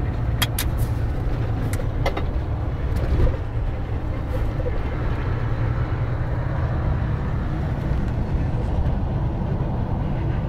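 Mercedes-Benz Actros truck heard from inside the cab on a steep downhill run: a steady low engine and road rumble, with a few sharp clicks or rattles in the cab in the first two seconds.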